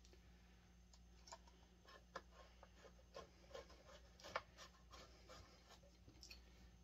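Near silence with faint, scattered small clicks and taps of chainsaw parts and tools being handled during reassembly, over a steady low hum.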